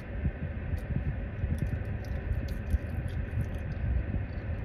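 Chewing with small scattered mouth clicks over a steady low rumble inside a car cabin.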